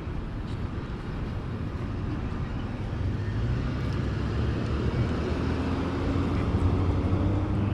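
Street traffic with a motor vehicle's engine running, the rumble growing louder about three seconds in.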